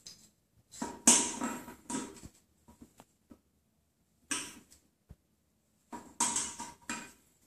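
Stainless steel food bowl scraping and clattering on a tiled floor as a kitten paws and bumps it, in three separate bursts with a slight metallic ring.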